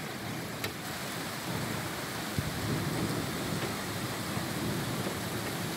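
Heavy rain pouring steadily in a downpour, with a low rolling rumble of thunder building about a second and a half in. Two brief sharp ticks stand out over the rain.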